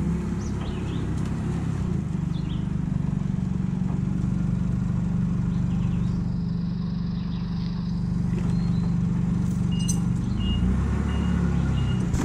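Propane Nissan forklift's engine running steadily while it moves a loaded pallet. Near the end its reversing alarm sounds a steady series of short high beeps as it backs up.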